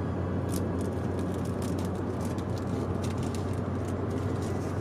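Road and engine noise heard inside a moving car's cabin: a steady low hum with many light, quick crackling clicks over it from about half a second in.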